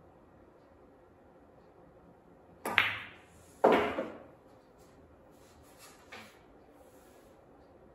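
Pool balls clacking: the OB cue strikes the cue ball, and about a second later a second sharp clack with a longer ring follows as the balls meet and the object ball goes in. Two faint knocks follow near the end as the balls roll on.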